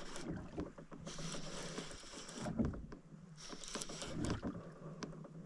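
Small rowboat being rowed: the oars swish through the water in strokes about every one and a half to two seconds, with a low knock during some strokes.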